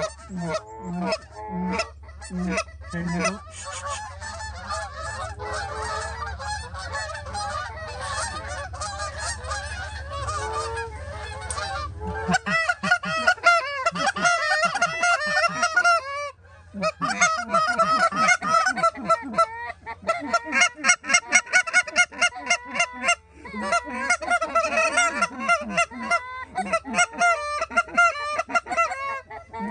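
Canada goose honks and clucks, many overlapping in fast runs. There is a brief break about halfway through, and then the calling comes back louder and denser.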